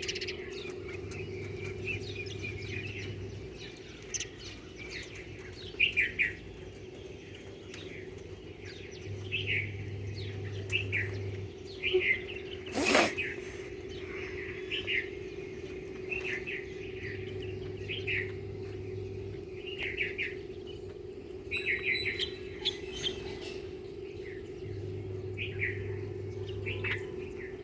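Small birds chirping in short repeated calls, a second or so apart, over a steady low hum. A lower hum comes and goes about every eight seconds, and a brief sharp sound stands out about halfway through.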